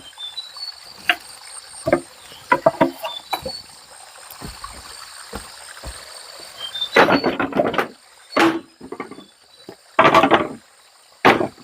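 Manual clearing work: scattered light knocks and clicks, then several louder scraping bursts of about half a second each in the second half. Faint high chirps of insects or birds run throughout.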